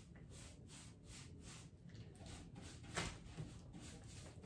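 Faint rhythmic back-and-forth strokes, about three a second, of a hand-held applicator wiping over the painted wood of a hutch, with a single sharper knock about three seconds in.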